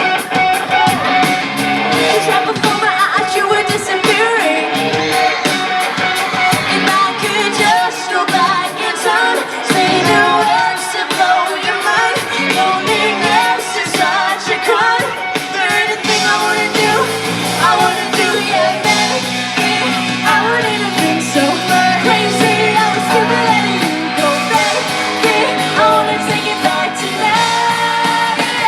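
Live pop-rock band playing with continuous loud singing and some yelling over it, heard from within a concert audience.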